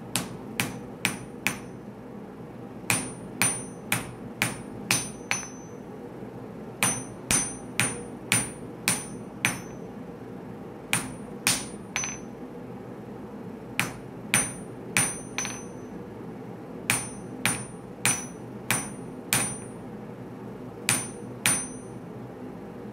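Hand hammer forging a hot Damascus steel blade on an anvil: bursts of about five or six blows, roughly two a second, with short pauses between bursts. Each blow rings briefly with a high metallic ping.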